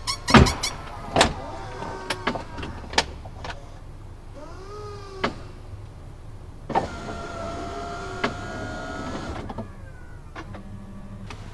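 Car door lock actuators clacking several times in quick succession near the start, with scattered clicks after. A small electric motor whirs briefly about four seconds in, then again steadily for nearly three seconds from about seven seconds in.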